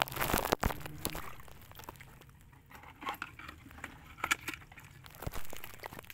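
Scattered clicks, taps and scrapes of crab-gathering gear being handled: metal crab tongs and a plastic bucket holding live crabs. A low hum sounds under it for about the first second, then stops.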